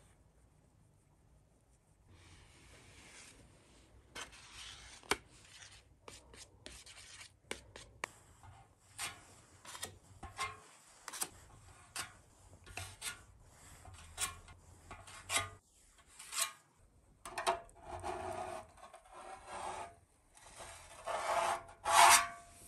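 A spreader scraping body filler across metal, mixing it with hardener and then smoothing it over a bare-metal motorcycle fuel tank: a run of short scraping strokes, about one a second, starting about two seconds in and loudest near the end.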